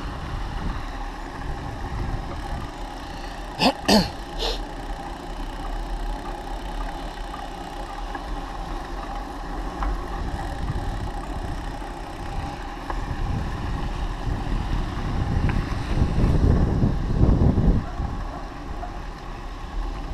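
Bicycle riding along a tarmac path, heard from a handlebar-mounted camera: steady rolling and rattling noise with a faint steady whine, two sharp clanks about four seconds in, and heavier wind rumble on the microphone near the end.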